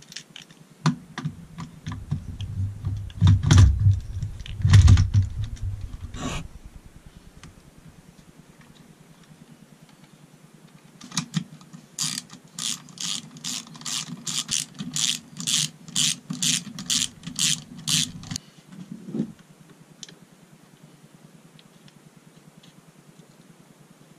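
Gearbox case bolts being done up. A cordless power tool runs in short bursts for the first few seconds, then a socket ratchet clicks in a steady run of strokes, about two and a half a second, from about halfway until near the end.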